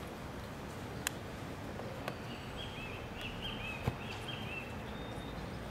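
Steady outdoor background noise with a short run of high, thin chirps near the middle and a few faint clicks, the sharpest a single knock about four seconds in.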